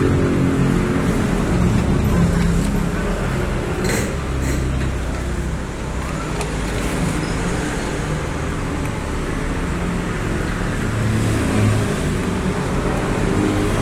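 Motor vehicle engine running with a steady low rumble that swells and eases, with two short clicks about four seconds in.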